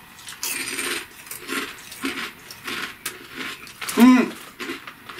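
Kettle-style potato chip crunching as it is bitten and chewed, a run of sharp, irregular crackles, with a short hummed voice sound about four seconds in.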